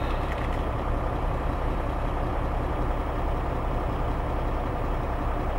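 Semi-truck diesel engine idling steadily, heard from inside the cab.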